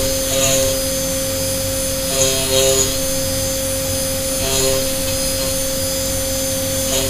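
Deckel Maho DMU80T CNC milling machine running at high speed, its spindle whine steady while a small end mill cuts a brass plate. The sound swells briefly twice, about two seconds in and again about four and a half seconds in, as an extra tone joins.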